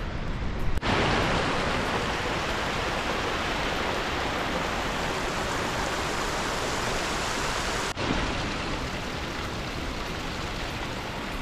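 Steady rush of water from a mountain stream, an even hiss that changes abruptly about a second in and again near eight seconds.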